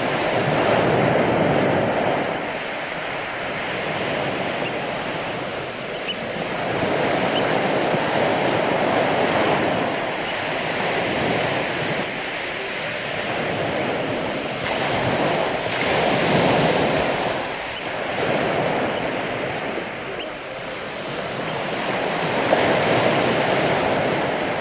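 Ocean waves breaking on a beach, the surf swelling and falling back about every six to seven seconds.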